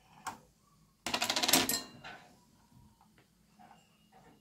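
Small tools handled on a workbench: a click, then about a second in a loud metallic rattle and clatter lasting under a second, followed by a few faint clicks.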